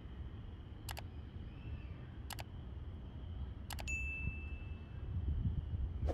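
Subscribe-button animation sound effects: three crisp mouse clicks about a second and a half apart, the last followed by a short bell ding that rings out for about half a second.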